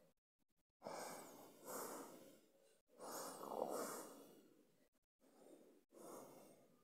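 A person breathing slowly and softly close to the microphone: a few long breaths with short pauses between them.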